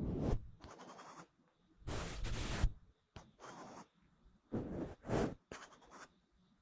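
Scratchy rubbing noise close to the microphone, coming in short strokes under a second long, three strong ones and several fainter ones between, with brief silences in between.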